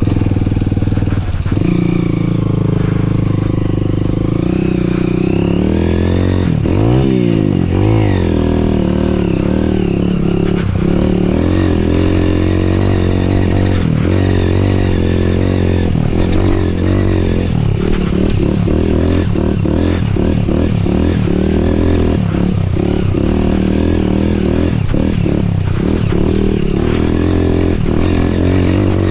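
Dirt bike engine running as it is ridden over a muddy track. The revs swing up and down about seven seconds in, and in the second half they are cut by many short throttle-offs.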